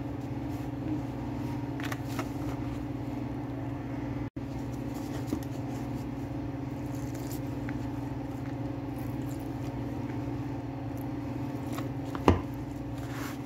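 Spatula stirring and scraping a stiff flour-and-tuna fish ball mixture in a plastic bowl, with scattered light scrapes and taps against the bowl and one sharper knock near the end, over a steady low hum.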